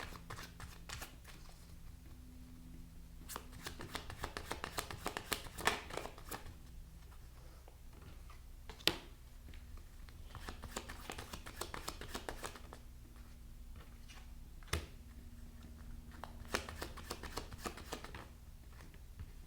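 A deck of tarot cards being shuffled in three bursts of rapid flicking, with two single sharp card snaps in between.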